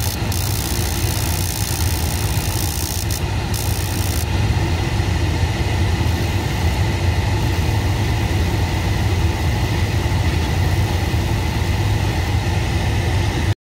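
Steady low mechanical drone of rooftop HVAC equipment running, with a strong low hum, during a spark test of a tape-insulated replacement sparker; it cuts off suddenly near the end.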